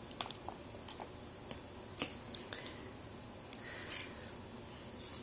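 A baby handling and mouthing a squeeze pouch of fruit-and-vegetable puree: faint scattered clicks and crinkles of the pouch, with small squishing mouth sounds and a brief louder cluster about four seconds in.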